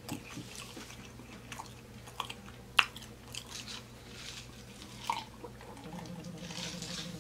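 Close-miked chewing of chili cheese fries with pork belly, with small wet mouth clicks and one sharper click a little before the middle. Near the end, drinking from a glass.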